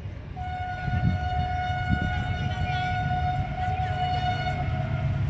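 Air horn of an approaching AGE-30 diesel-electric locomotive sounding one long steady blast on a single note, beginning about half a second in and lasting about four and a half seconds.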